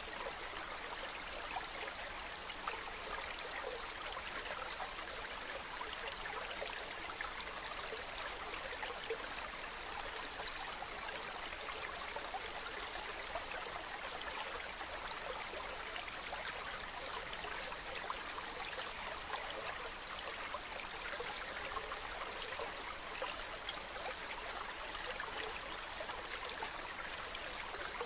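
Stream water running steadily, an even rush with fine splashing and burbling throughout.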